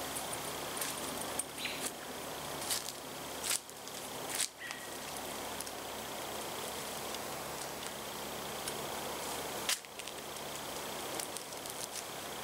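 Steady outdoor background hiss, broken by a few short, sharp clicks and rustles of gear being handled.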